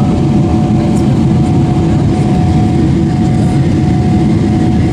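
Steady cabin noise inside a Boeing 777-300ER during descent: a deep, even rumble of the GE90 engines and airflow past the fuselage, with a steady hum held at one pitch.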